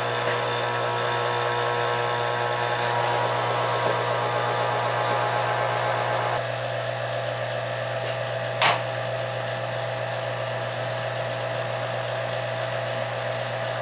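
Vacuum-forming machine's vacuum motor running: a steady hum with a whine on top. About six seconds in, while the manifold valves are being worked, the whine shifts and the sound drops slightly, and a sharp click follows a couple of seconds later.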